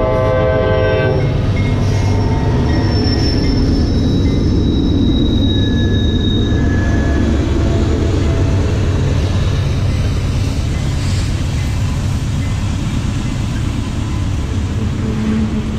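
A Norfolk Southern diesel locomotive's K5LA air horn sounds a chord that cuts off about a second in. The locomotives pass and a double-stack intermodal train rolls by with a steady rumble of wheels on rail and a few brief, high wheel squeals.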